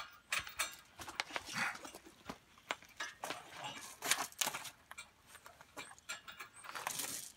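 Scattered clicks, knocks and rustling from hands-on work under a pickup truck: step-bar hardware being handled, and a person shifting and getting up on gravel and a plastic sheet.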